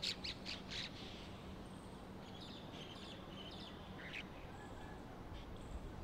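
Bank myna calling: a quick run of short, loud notes in the first second, then quieter, jumbled chattering from about two to four seconds in.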